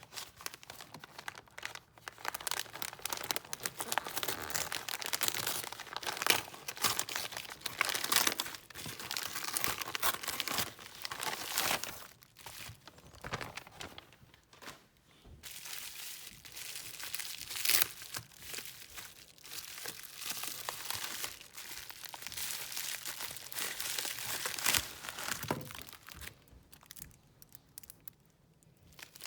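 Packaging crinkling and rustling as it is unwrapped and handled, with irregular sharp crackles; it eases briefly about halfway through and dies down near the end.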